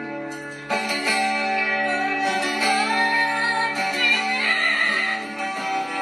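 Acoustic guitar strummed, a new chord struck about a second in, with an Amazon parrot singing along in a wavering voice over the chords.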